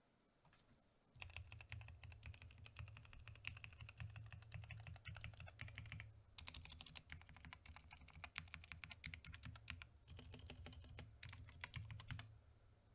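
Mechanical keyboard being typed on rapidly in a steady stream of key clacks. The typing starts about a second in, pauses briefly twice and stops just before the end.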